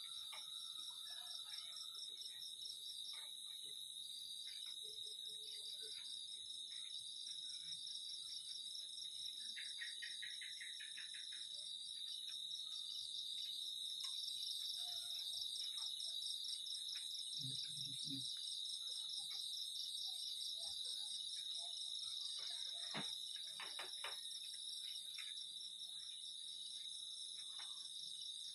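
Night chorus of crickets and other insects: a steady high trill with several fast-pulsing layers over it. A short low sound comes a little past halfway, and a few faint clicks later on.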